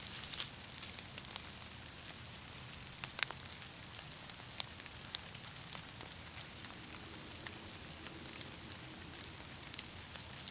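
Quiet woodland ambience: a steady soft hiss with scattered crackles of dry leaf litter. A few crackles come in the first second and a sharper one about three seconds in.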